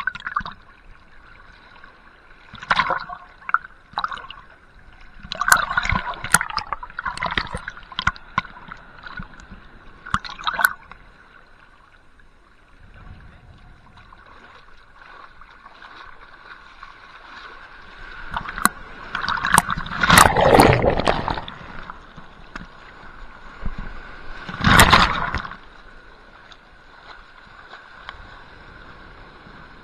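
Sea water sloshing and gurgling around a microphone held right at the waterline, coming in irregular surges a few seconds apart, with the biggest washes about two-thirds of the way through and again soon after.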